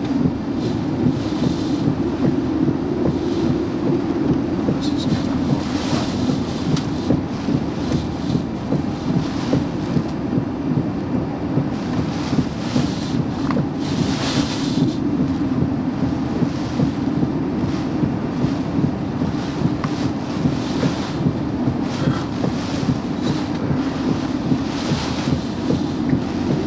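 Hurricane wind buffeting the microphone, a steady low rumble with gusts of hissing wind and rain that come and go every few seconds.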